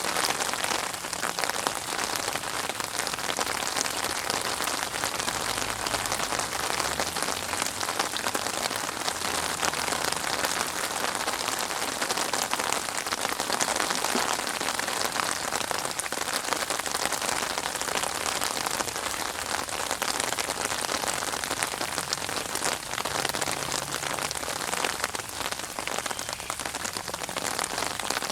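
Steady rain falling, a dense patter of drops on a surface.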